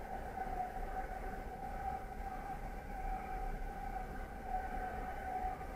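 Passenger train running at speed, heard from inside the carriage: a steady high whine of constant pitch over a low rumble.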